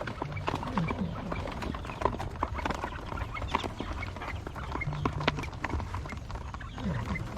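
A flock of quail pecking and moving about, a dense irregular patter of small taps and clicks, with scattered short high peeps.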